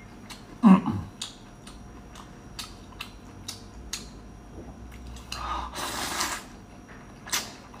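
Close-up eating sounds: wet clicks of chewing and lip smacks throughout. A short loud sound about a second in. Wide noodles slurped in with a hiss of air for about a second, a little past the middle.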